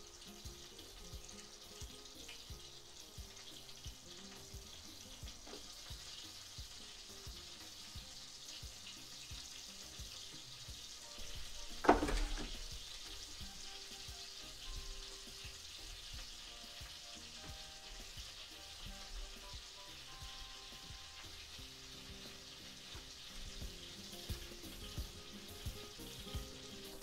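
A steady frying sizzle from a pan heating on the wood-fired stove. About twelve seconds in, a metal clank with a brief ringing tone, like a metal saucepan set down on the table.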